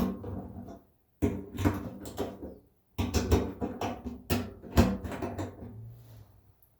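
Hand tools and metal parts being handled: knocks, clinks and scraping in three short bouts with quiet gaps between them.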